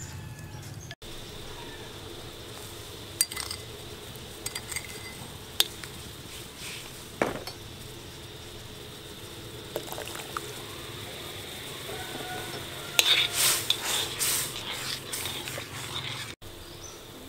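Metal spoon clinking and scraping against an iron wok of hot, steaming liquid. There are a few separate taps, then a burst of stirring near the end.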